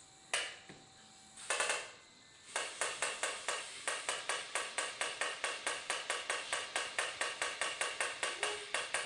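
Remote-control toy train running: a single click and a short rattle, then from about two and a half seconds in a steady run of sharp mechanical clicks, about five a second.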